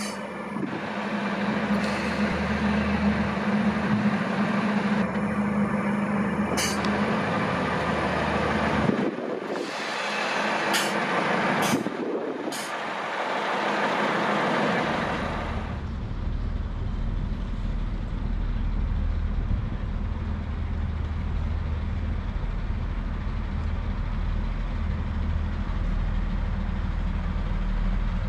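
Class 142 Pacer railbus's underfloor diesel engine running close by, with a broad noisy sound and a few sharp clicks in the first half. About halfway through this gives way to a steady low engine hum.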